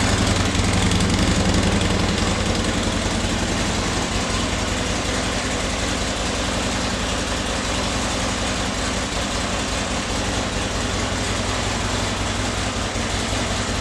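Harley-Davidson XR1200X's air-cooled 1200 cc V-twin idling steadily. The flood-damaged engine keeps running on its own.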